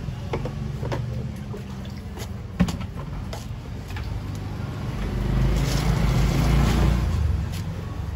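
Cleaver chopping into the husk of a green coconut on a wooden block: scattered sharp knocks, the loudest about two and a half seconds in. Under them a motor vehicle's engine runs steadily, growing louder between about five and seven and a half seconds in.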